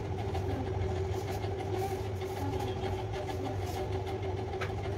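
A steady electrical machine hum: a low drone with a higher steady tone over it, unchanging throughout.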